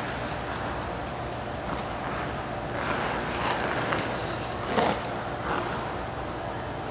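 Figure skate blades scraping on the ice in a few swells as the skater glides and slows to a stop, the loudest scrape near five seconds in, over the steady hum of an indoor rink.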